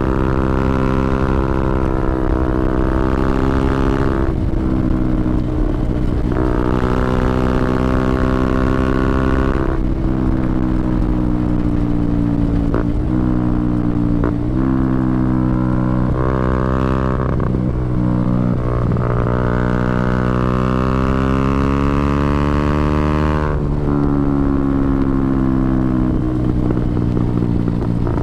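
KTM Duke 125's single-cylinder four-stroke engine through an open Scorpion exhaust with no dB killer, heard onboard while riding. Its note climbs in pitch and drops back several times, as through gear changes.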